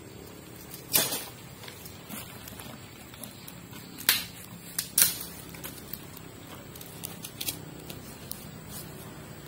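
Sharp snaps and crackles from a small wood cooking fire and from bare feet stepping on dry leaves and twigs, over a low steady background. The loudest snaps come about a second in and around four to five seconds in.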